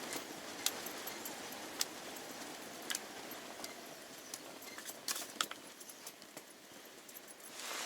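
Steady rushing of strong wind with scattered sharp clicks and clinks, about seven of them spread through the stretch.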